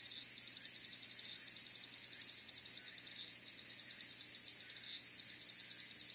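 A steady, high-pitched chorus of insects with a fast pulsing trill, and a few louder chirps standing out every second or two.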